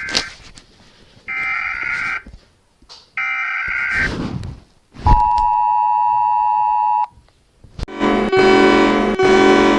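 Emergency Alert System-style alarm: short squawking data-header bursts, then the two-tone attention signal held steady for about two seconds. Near the end a loud chord starts pulsing about once a second.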